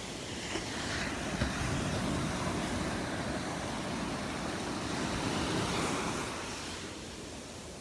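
Gulf of Mexico surf washing onto the beach, with wind on the microphone; the rush of the waves eases off near the end.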